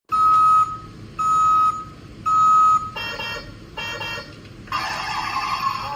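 Electronic beeping from a battery-powered toy's sound module: three short, steady beeps about a second apart, then two brighter chiming tones, then a busier electronic sound effect starting near the end.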